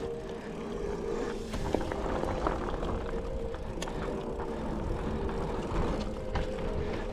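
Mountain bike running down a dirt trail: steady tyre rumble and wind on the microphone, with scattered clicks and knocks as the bike rattles over rocks and roots.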